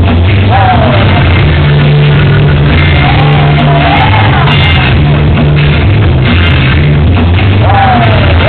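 Loud music with a heavy, repeating bass line and a singing voice that glides up and down in pitch.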